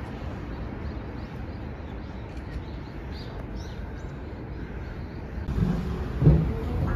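Outdoor background with a steady low rumble and scattered faint bird chirps over the first few seconds, then a couple of louder thumps near the end.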